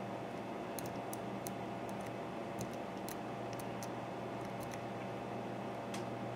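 Faint, irregular metallic clicks of a hook pick working the pins inside an American Series 5200 padlock's keyway, about ten in a few seconds, over a steady hum.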